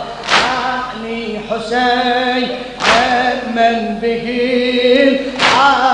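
Male voices chanting an Arabic latmiya, a Shia mourning lament, with three loud chest-beats about two and a half seconds apart, keeping the chant's slow beat.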